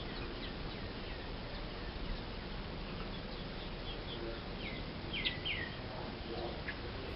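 Birds chirping faintly: scattered short notes that slide downward, the clearest a pair about five seconds in, over a steady outdoor background hiss.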